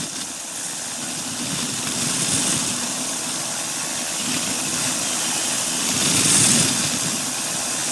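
Flexwing microlight trike in cruise flight: the steady drone of its pusher engine and propeller mixed with rushing wind, swelling slightly twice.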